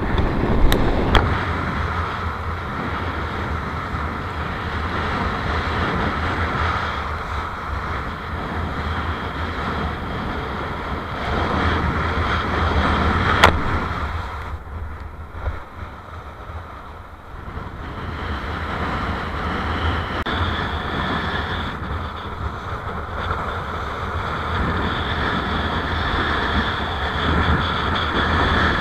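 Strong wind buffeting an action camera's microphone while kitesurfing, with the rush of the board through choppy, foaming surf. A sharp tap comes about halfway through. Straight after it the noise turns duller and quieter for a few seconds as a hand covers the camera.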